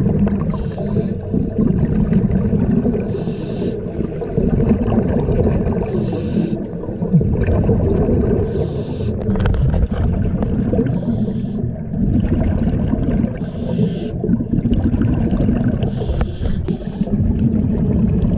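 Scuba diver breathing through a regulator underwater. Short hisses recur about every two and a half seconds, with bubbling and rumbling of exhaled air between them.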